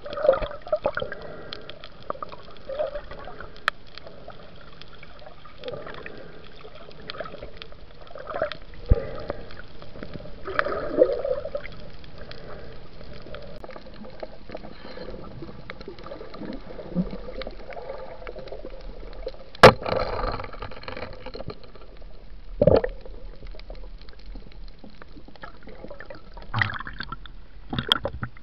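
Muffled water sounds picked up by an action camera underwater: gurgling and sloshing as a diver swims, with occasional sharp knocks and clicks, the loudest about two-thirds of the way through.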